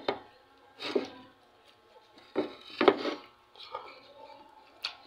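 Close-miked eating sounds: a man eating rice and chicken by hand from a plate, with mouth noises and fingers working the food. Short irregular bursts come about a second in and around three seconds in, with a sharp click near the end.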